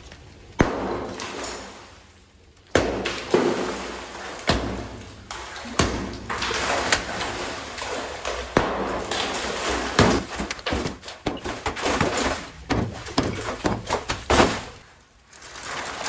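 Brick and mortar rim of an old cistern being broken up with a heavy steel bar: about a dozen sharp blows at irregular intervals, each followed by crumbling and clattering rubble, with a short lull near the end.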